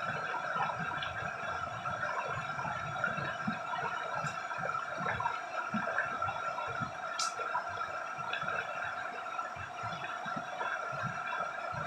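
Shallow river running over stones, a steady babble and gurgle of water, with one brief high click about seven seconds in.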